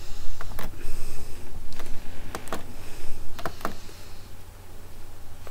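Scattered short clicks and knocks, several in quick pairs, over a steady low hum.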